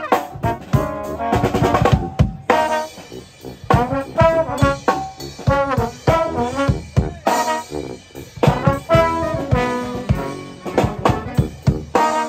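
A brass band playing Dixieland-style music live, with trombones out front and a marching bass drum and drums keeping a steady beat. The music breaks off for a moment about two seconds in, then comes back in.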